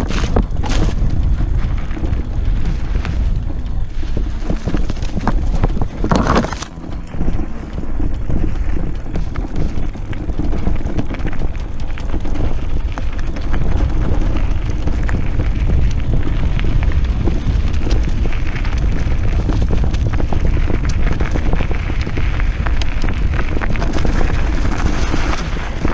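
Wind buffeting the microphone of a camera riding on an electric mountain bike, over the rumble of knobbly tyres rolling on a dirt and gravel trail. Scattered clicks and knocks come from the bike rattling over bumps, with one louder knock about six seconds in.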